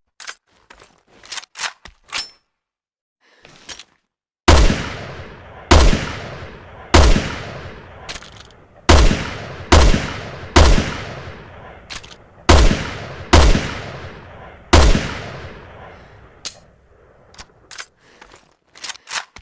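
SVD Dragunov semi-automatic rifle in 7.62×54mmR firing about ten shots in quick succession, each a sharp crack with a booming tail that dies away. A few light mechanical clicks come before and after the string of shots.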